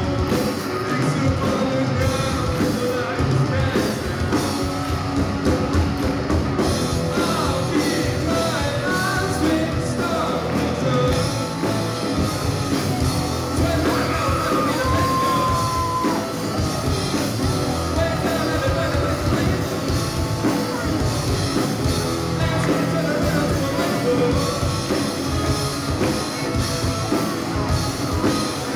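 A live rock band playing with singing: drums, distorted electric guitars and a vocalist, in a large hall.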